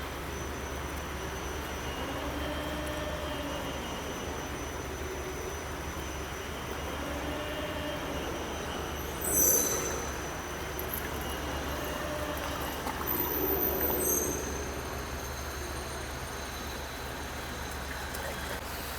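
Steady railway workshop background noise with a constant low hum, and a short metallic clank with a high ringing about halfway through.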